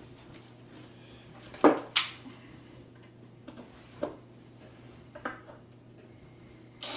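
Small metal clinks and taps as a new cabinet door handle and its screws are handled. There are a few sharp clicks: the loudest two close together about two seconds in, then single ones around four and five seconds in.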